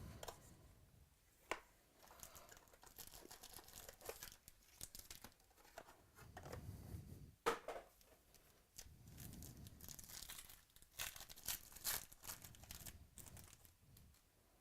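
Faint tearing and crinkling of a trading-card pack's wrapper being torn open and handled, with a few sharp clicks and denser crackling about ten seconds in.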